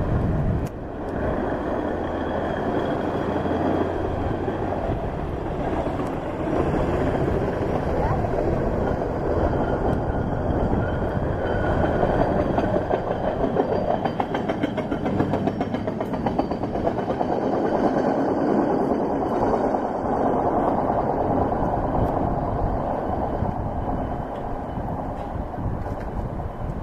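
Hi-rail pickup truck running along the railroad track on its steel guide wheels: a steady rumble of engine and wheels on rail that grows louder as it passes close by around the middle, then eases off.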